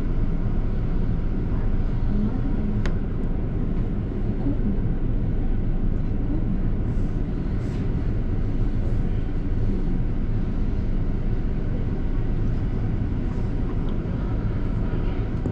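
A double-decker bus's engine and road noise heard from inside the cabin while it drives: a steady low rumble with some hiss above it.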